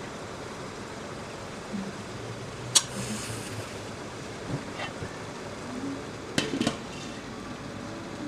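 Stainless steel steamer pot hissing steadily with boiling water and steam, with sharp metal clinks as the steamer basket and lid are handled: a loud clink about three seconds in, a lighter one near five seconds, and a quick pair of clinks past six seconds as the glass lid is set on.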